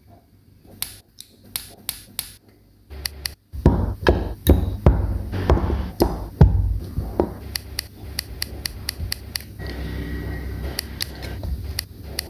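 Plastic model kit parts being clicked, snapped and tapped together by hand: a series of sharp clicks, sparse at first, then coming thick and fast with duller knocks from about three and a half seconds in.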